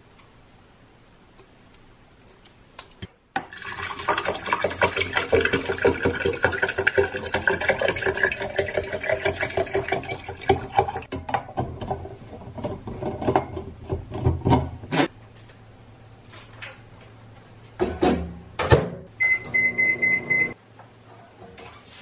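Water pouring into a tall insulated stainless steel tumbler for about eleven seconds, starting about three seconds in. Near the end come a couple of clatters and a short steady electronic beep.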